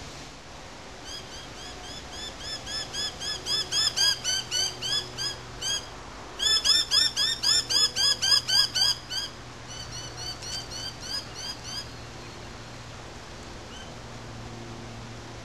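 Mynahs calling in long runs of quick, repeated arched notes, about three or four a second. There are three bouts: one that grows louder, the loudest in the middle, and a softer one near the end.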